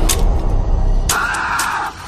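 Background music with heavy bass and a beat of sharp percussive hits. From about a second in until just before the end, a band of hiss plays over it.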